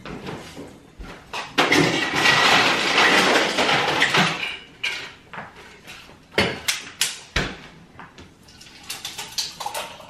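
Kitchen handling sounds: a few seconds of water rushing steadily into a cup, then a series of clinks and knocks as a plastic tumbler and bottles are handled and set on the counter.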